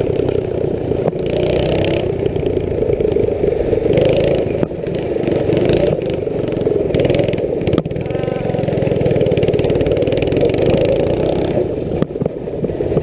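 Small engine of a ridden go-kart or mini bike running steadily under way, its pitch wavering a little, with brief dips about five and eight seconds in.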